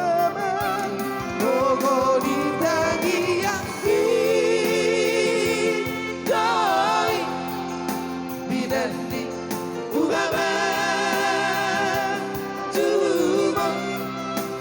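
Music: a voice sings long held notes with wide vibrato over a steady sustained accompaniment, in a slow Batak song.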